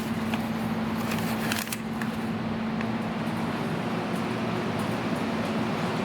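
Steady mechanical hum with one low steady tone, like a fan running, with a few light clicks in the first two seconds.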